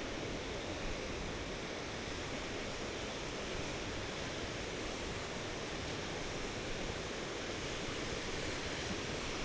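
Steady, unbroken rush of a large waterfall's falling water.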